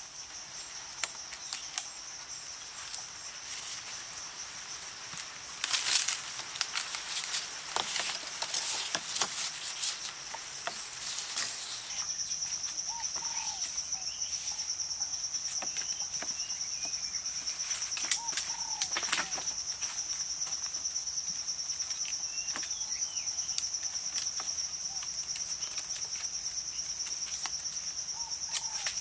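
Steady high-pitched drone of insects, crickets or cicadas, which grows louder about twelve seconds in. Over it come sharp knocks, snaps and rustles of wooden branches being handled and bent, most of them in the first half and again around nineteen seconds, with a few faint chirps.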